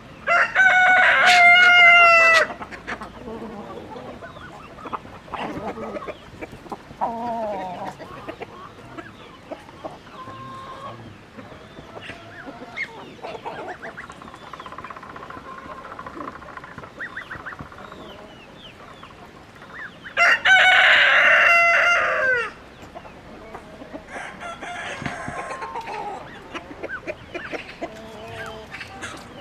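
A rooster crows twice, a loud drawn-out call near the start and another about 20 seconds in, each falling off at the end. Between the crows, chickens cluck and call softly.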